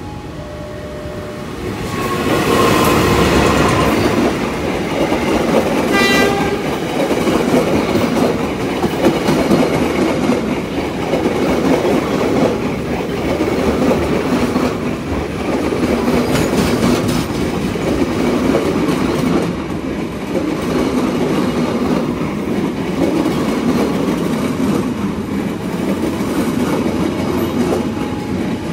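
A long diesel-hauled passenger train passing close by: the locomotive sounds its horn about two seconds in and gives a short second blast around six seconds, then a long string of coaches rolls past with a steady clickety-clack of wheels over the rail joints.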